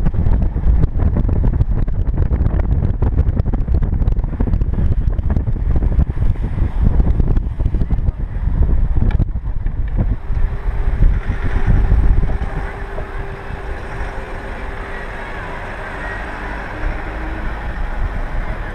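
Wind buffeting the microphone of a camera on a trailered boat being towed along a road, mixed with road noise from the tow. About twelve seconds in the buffeting eases, leaving a quieter, steady hum.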